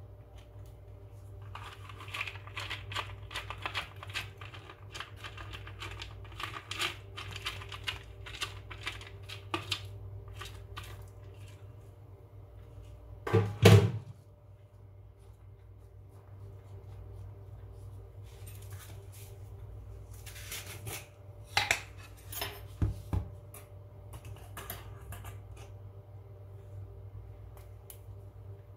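Kitchen handling sounds: a run of light clicks and rustles, one louder knock about halfway through, then more scattered clicks. This fits gloved hands scattering chopped nuts over a baked loaf in a metal pan. A low steady hum runs underneath.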